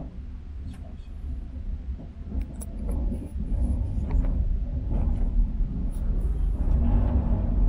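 Cabin noise inside a KTX high-speed train running: a steady low rumble that grows louder about three seconds in, with scattered light clicks and ticks on top.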